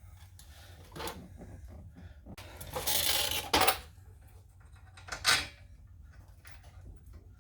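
Clinks and clatter of metal tools and hub bolts being handled, with a rough noise lasting about a second near the middle and a sharp clank a little after five seconds in.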